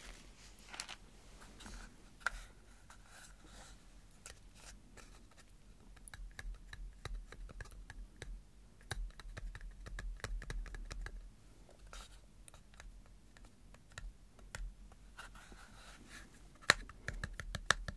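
Long fingernails tapping and clicking on the case of a small metal pirate compass: soft, irregular taps, coming in quicker clusters in the middle and near the end.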